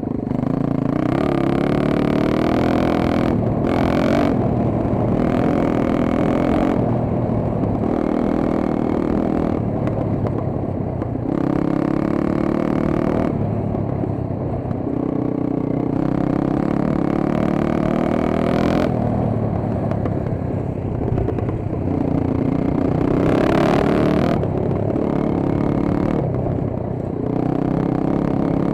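Dirt bike engine being ridden hard. It revs up and drops back about every two to three seconds as the rider changes gear and rolls on and off the throttle.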